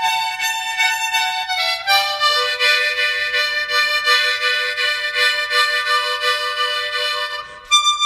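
Harmonica played solo in long held notes, the upper tones wavering. About two seconds in it slides down to a lower note that is held for some five seconds, then breaks off briefly near the end.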